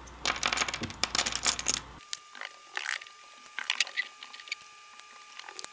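Small notched wooden kumiko pieces poured from a hand onto a wooden workbench pile, a dense clatter of light wooden clicks for about two seconds. After that, only scattered light clicks as single pieces are picked out and handled.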